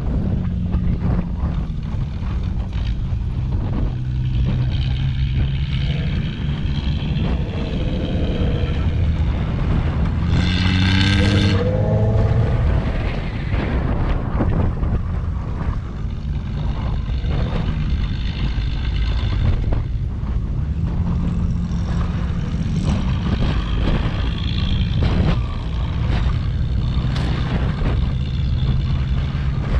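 Toyota FJ Cruiser's 4.0-litre V6 engine pulling the truck along a dirt track over a steady rumble, its pitch rising and falling with the throttle; about ten seconds in it revs up sharply.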